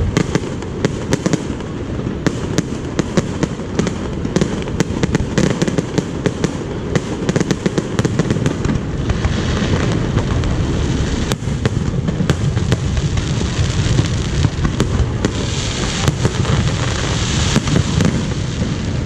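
Fireworks display going off continuously: many sharp cracks and crackles each second over a steady low rumble of bursting shells.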